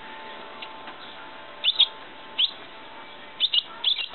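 Baby blackbird chirping: short high chirps in pairs, about a second and a half in, once more near two and a half seconds, and several near the end.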